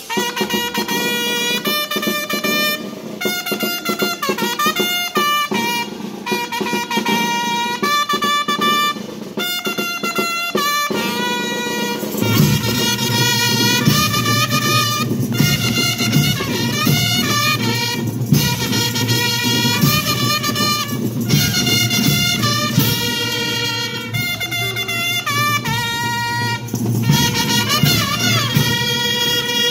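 School rhythmic marching band playing a tune on trumpets and other brass in short phrases; about twelve seconds in a heavier low part with drums joins and the music runs on fuller.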